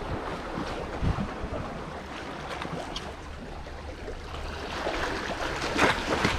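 Sea waves washing on shore rocks with wind buffeting the microphone, a steady rushing noise with a few sharper, louder moments near the end.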